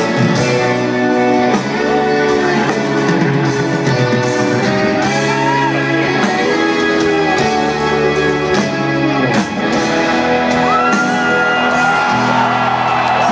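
Live rock band playing loud amplified music with a lead vocal and electric guitar, heard through the stadium PA from within the crowd.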